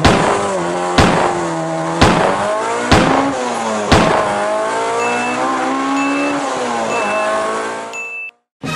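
Honda K20A (DC5 Integra Type R) four-cylinder in a 1994 Civic EG3, heard from inside the cabin, revving hard under full-throttle acceleration through a 3-inch exhaust. Its pitch climbs as it winds up toward about 7,000 rpm on the VTEC cam. Sharp clicks come about once a second at first, short high beeps about once a second later on, and the engine note drops and cuts off near the end.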